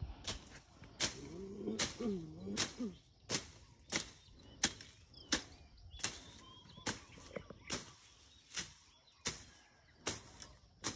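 Sharp crunching strokes in grass and weeds, evenly spaced at about one every two-thirds of a second. A brief wavering whine rises and falls about two seconds in.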